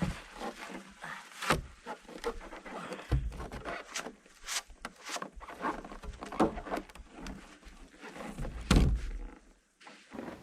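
Irregular knocks, clicks and thuds, with one heavy thump about nine seconds in.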